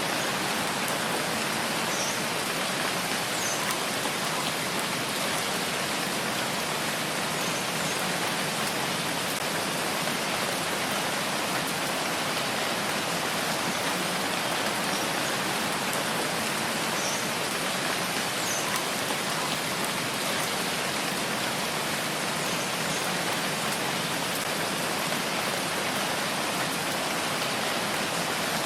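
Steady rain falling on a surface, an even hiss with no breaks.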